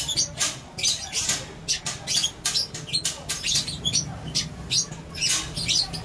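Wiring of a Honda TMX155 motorcycle harness being handled: quick, irregular crisp rustles and small clicks, three or four a second, over a faint steady low hum.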